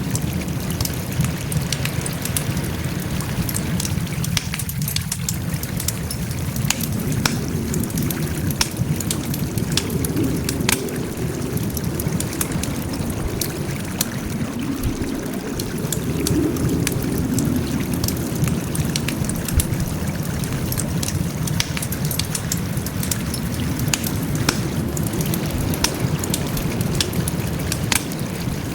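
Wood fire burning, with frequent irregular sharp crackles and pops over a steady low rush.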